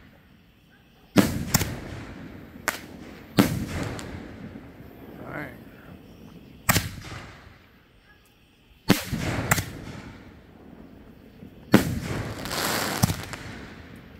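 7-inch canister aerial fireworks shells launching from their mortar tubes and bursting overhead: about eight sharp reports at uneven intervals, each dying away, with a longer rush of noise near the end.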